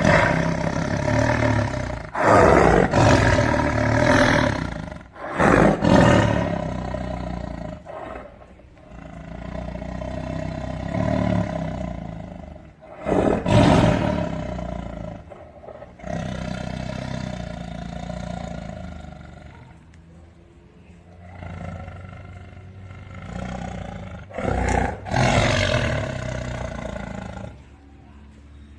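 Tiger roaring again and again: a series of long, loud roars, with quieter stretches between them.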